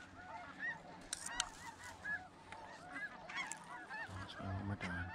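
A chorus of snow geese calling: many short, high, overlapping honks, with a few sharp rustles about a second in and a brief low sound near the end.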